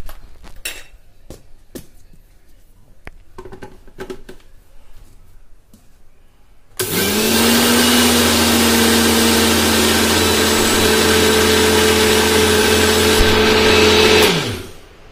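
A few handling clicks and knocks, then about seven seconds in an electric mixer grinder starts, quickly reaches speed and runs steadily, grinding sugar to powder in its steel jar. Near the end it is switched off and the motor's pitch falls as it spins down.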